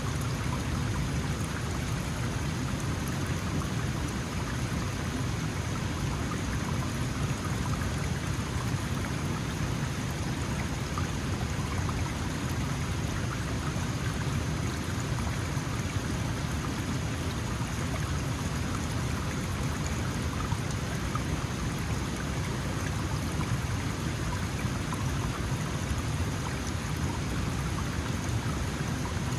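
Small mountain stream flowing steadily over stones: a constant rushing and splashing of water with no change.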